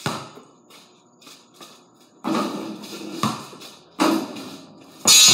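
Basketballs bouncing hard on a concrete garage floor, about four separate hits that ring on in the room. A much louder crash comes near the end.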